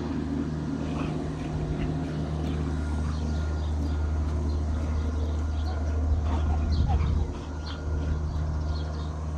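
Dogs giving short barks and yelps over a steady low motor hum.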